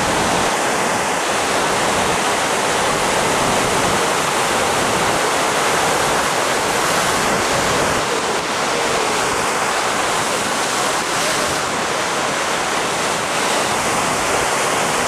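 Steady rush of breaking ocean surf.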